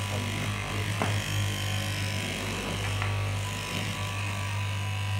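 Electric straight-knife fabric cutting machine running with a steady buzz as its vertical blade cuts through a stacked lay of fabric layers, with a couple of light clicks about one and three seconds in.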